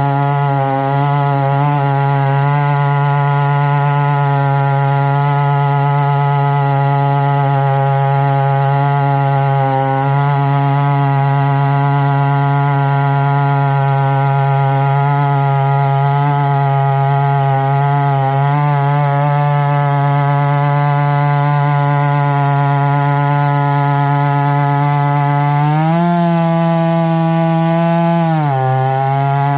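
Stihl MS661C two-stroke chainsaw running at steady high revs under load, ripping lengthwise through a pine log in a Granberg Alaskan chainsaw mill. Near the end the engine note climbs, drops briefly, then climbs again as the load on the chain changes.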